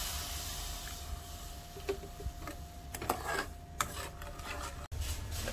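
Metal spoon stirring and scraping through soy sauce, brown sugar and sesame seeds in a nonstick pan, with a few sharp clinks of the spoon against the pan. A hiss from the soy sauce poured into the pan fades at the start.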